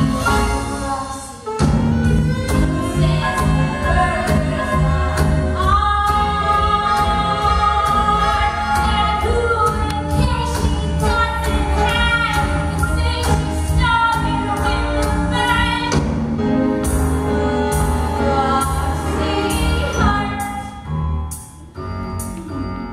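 A woman singing with full-voiced, held notes over backing music with a heavy, steady bass beat; the music drops away briefly about a second and a half in.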